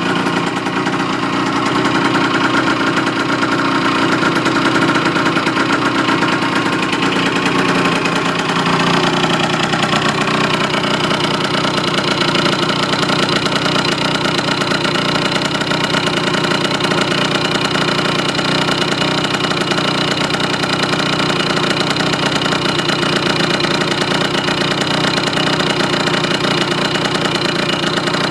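Small 50 cc two-stroke scooter engine (a Yamaha 3KJ-based unit in a BW's 50 three-wheeler) running steadily at low speed, its pitch shifting slightly about nine seconds in and then holding.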